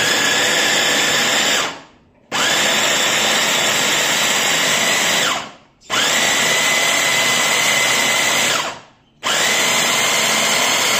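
Glen mini electric chopper's motor spinning its twin blades through chunks of onion, pulsed by its push button: four runs of about three seconds each with half-second pauses between. Its whine sits a little higher in the later runs.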